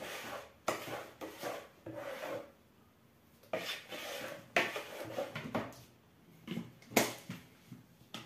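Spoon stirring and scraping thick pancake batter in a plastic bowl, in uneven bursts with short pauses, and a sharp knock about seven seconds in.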